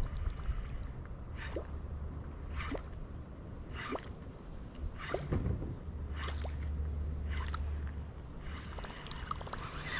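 A topwater lure being worked across a pond: a short watery splash about once a second, over a low wind rumble.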